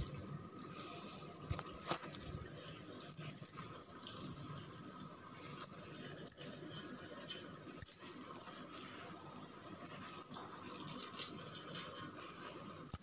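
Handfuls of rice dropped and spread by hand over a vegetable layer in a metal pot: soft, irregular pattering and rustling with occasional small clicks.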